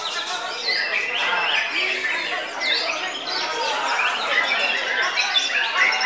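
Caged songbird singing a fast run of varied chirps and whistled phrases, with other birds chirping at the same time.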